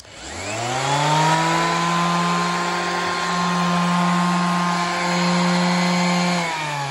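Ryobi RS-115 electric sander switched on: its motor spins up with a rising whine over about a second and then runs steadily. Near the end the pitch drops and it keeps running at a slower speed.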